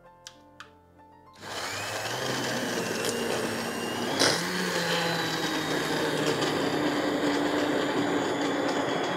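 Hand-held immersion blender switching on about a second and a half in and running steadily in a pot of cooked carrot soup, puréeing it. Its whine climbs a little over the first couple of seconds, and a single sharp knock comes about four seconds in.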